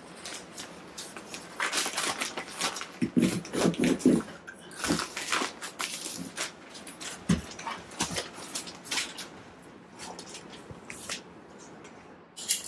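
Utility knife cutting through a kraft-paper-faced fiberglass insulation batt, with the paper facing crinkling and the fiberglass tearing in irregular rustles and scrapes.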